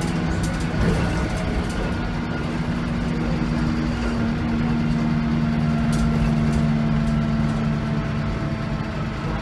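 Diesel engine of a VDL SB200 Wright Commander single-deck bus pulling along, heard from inside the saloon: a steady engine drone over road rumble that grows a little louder about four seconds in.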